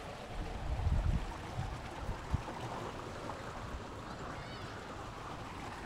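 Steady outdoor rush by a duck pond, with a few low thuds about a second in and a faint high chirp a little after four seconds.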